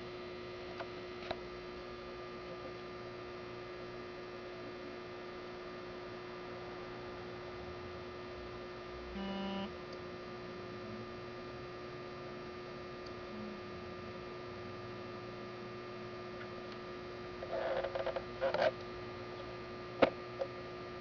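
Steady electrical mains hum, a constant low drone with a fixed tone. About nine seconds in a short buzzy tone sounds for half a second, and near the end there are a few faint rustles and a single click.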